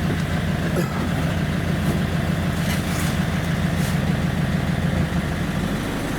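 Iveco Daily van's diesel engine idling steadily, with a few faint clicks over it.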